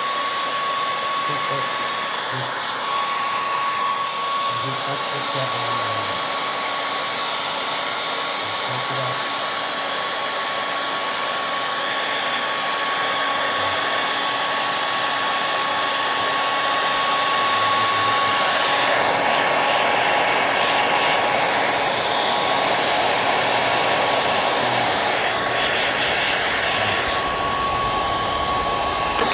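Steady whir of a small electric blower motor, the kind of sound a hot-air gun or hand vacuum makes, with a constant high whine. It gets a little louder about two-thirds of the way through.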